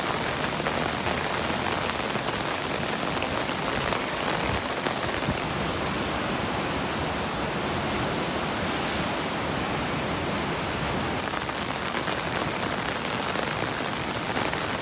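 Heavy rain falling together with the rush of a flood-swollen river, a steady even hiss with faint scattered drop ticks.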